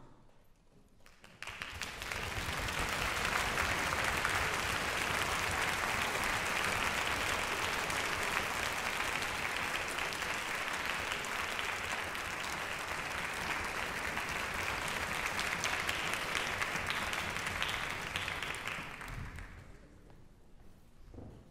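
Audience applauding in a concert hall, rising quickly about a second and a half in, holding steady, then dying away near the end.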